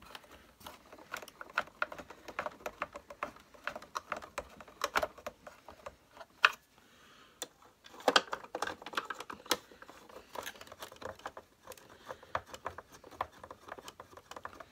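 Irregular small clicks and taps of a screwdriver working two screws into deep screw holes in an Electrolux vacuum cleaner's plastic housing, with one sharper click about six and a half seconds in.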